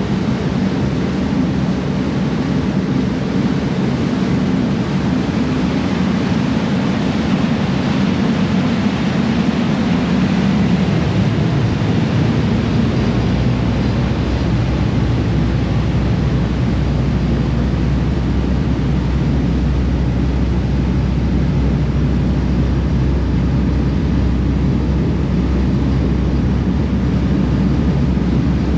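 Passenger ferry's engines droning steadily under a constant hiss of wind and rushing wake water. About twelve seconds in, the engine hum drops to a deeper rumble.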